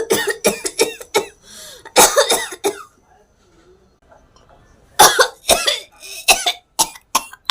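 A person coughing in fits: a run of quick, hard coughs, another burst about two seconds in, a pause, then a second run of coughs from about five seconds in.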